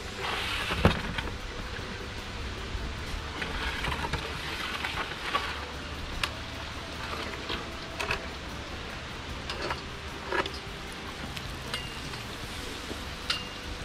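A flushing bailer for hand well-drilling being hauled up the casing pipe on a rope over a pulley: scattered knocks and clicks over a steady hiss, with a couple of short high squeaks near the end.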